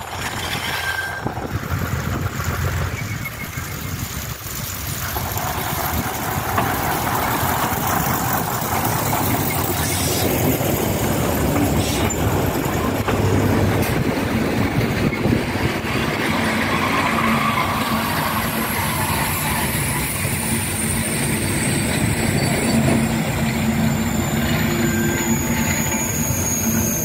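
Diesel-hauled passenger train running past close by, with a steady rumble of the locomotive and carriage wheels on the rails. Over the last ten seconds or so a thin high squeal falls in pitch as the train slows to a stop.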